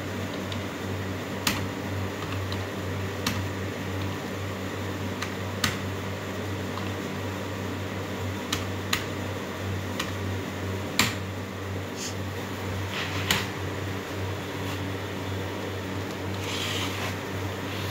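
Buttons pressed on a Vitco milk analyzer's keypad: about eight sharp single clicks at irregular gaps, over a steady low hum.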